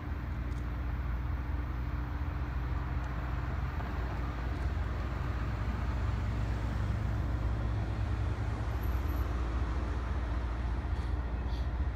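CSX diesel locomotives running slowly at a distance as a train approaches: a steady low engine rumble with a hum above it, growing gradually louder.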